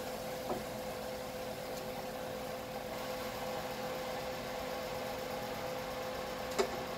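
Steady machine hum with a constant tone over an even hiss, with a soft clink about half a second in and a sharper clink near the end, a metal utensil against the frying pan.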